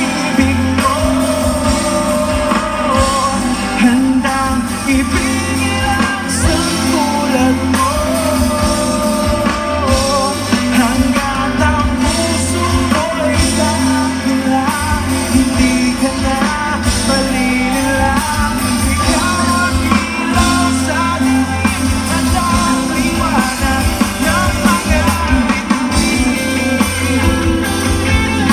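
Live pop-rock band playing through a PA: acoustic guitar, drum kit, bass and keyboard, with singing over it.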